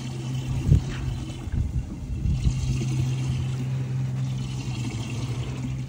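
Steady low motor hum aboard a small boat, with a low thump about a second in and uneven low rumble underneath.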